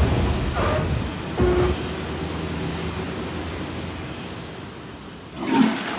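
Added sound effect of heavy hangar doors rolling shut: a deep rumble with two metallic clanks in the first two seconds, slowly dying away. A short swelling whoosh comes near the end.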